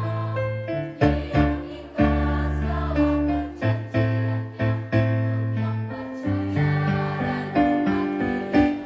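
Junior-high school choir singing a sustained melody with instrumental accompaniment, its sharply struck notes coming about once or twice a second.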